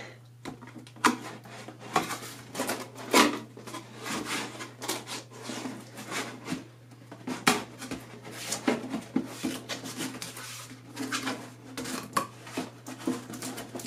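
Cardboard box being handled and folded shut: irregular knocks, scrapes and rustles of the flaps and lid.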